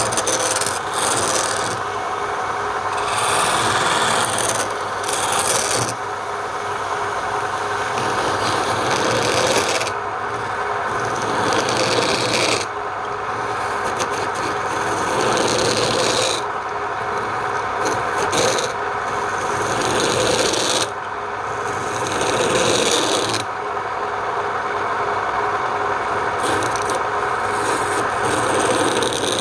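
Wood rasping and rubbing against a piece of palm wood spinning on a lathe, in repeated passes a few seconds long.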